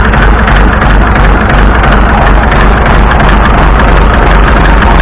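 Massey Ferguson 165 tractor engine running loud, with a mystery knocking noise in it that the owner thinks is a connecting rod knocking.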